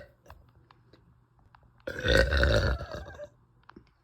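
A woman's long, loud burp lasting about a second and a half, starting about two seconds in. The tail end of an earlier burp cuts off right at the start.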